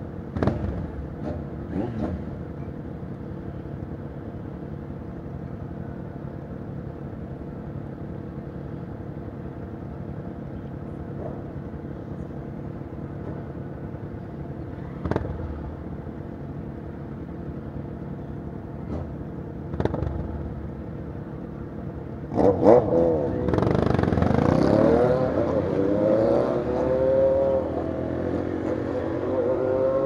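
Motorcycle engines idling steadily, with a few short sharp sounds over the top. About 22 seconds in the engines rev up hard as the bikes pull away, the pitch climbing and dropping back through several gear changes.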